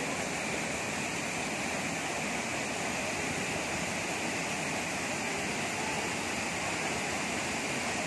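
Waterfall pouring into a rock plunge pool: a steady, even rush of falling water.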